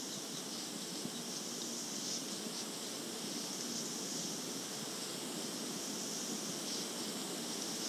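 Steady hiss and background noise of a 1970s cassette tape playing back, heard through earbuds held up to a phone's microphone.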